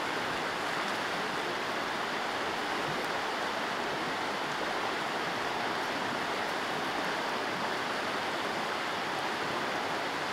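Steady rushing of a flowing mountain stream, an even wash of water noise with no breaks.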